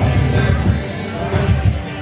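Live band music from a duo on acoustic and electric guitar, played through stage speakers, with a steady beat in the low end.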